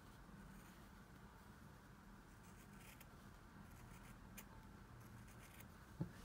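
Faint, scattered snips of small scissors cutting through the knitted wool of a crochet-reinforced steek, opening the front of a cardigan. A soft thump near the end.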